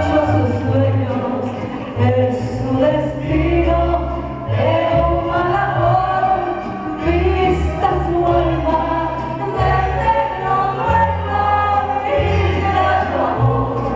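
Live concert music: a woman singing into a microphone over instrumental accompaniment, with a bass line changing note about once a second.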